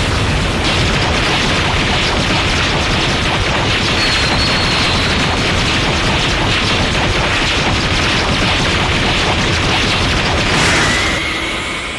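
Dragon Ball-style anime sound effect: a sustained loud explosion-like rumble of dense noise, with a brief high whine near the end as it starts to fade out.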